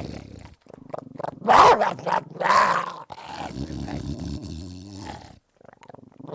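Pit bull terrier vocalizing: two loud short barks about one and a half and two and a half seconds in, then a low growl that stops about a second before the end.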